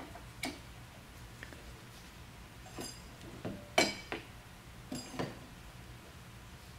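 A handful of light metallic clinks and clicks as a steel pin punch and small pins knock against the Crown PTH50 pallet-jack hydraulic unit while the actuating pin is worked into place. The loudest clink comes a little past halfway.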